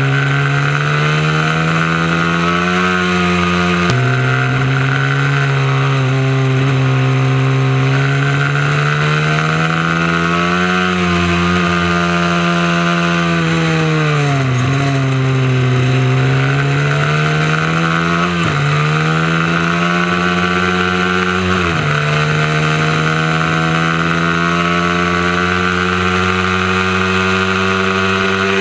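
Mini moto race bike engine running hard at close range. Its note climbs and falls as it accelerates and slows, dipping once in the middle. It drops suddenly in pitch about four seconds in and twice more near the end as the rider shifts gears.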